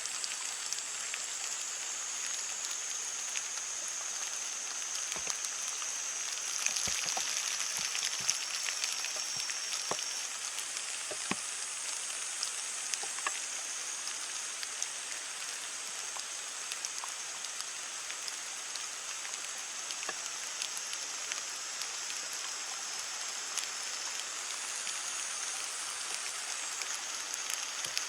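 Heavy rain falling on leaves: a steady hiss with many scattered drips and taps, a little louder about a quarter of the way in. A steady high-pitched whine runs above it.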